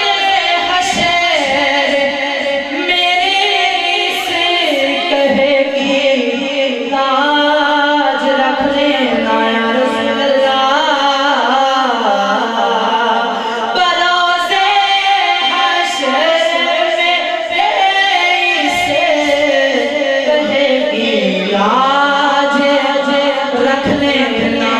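A man reciting a naat, singing into a microphone in a high, melismatic voice with long, ornamented held notes.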